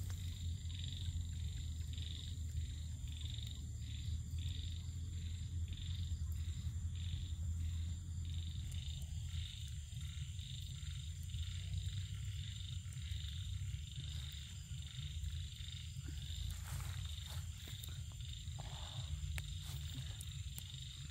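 Frogs and insects calling: a pulsed call repeating about two to three times a second over a steady high insect whine and a low steady drone, with a few faint rustles near the end.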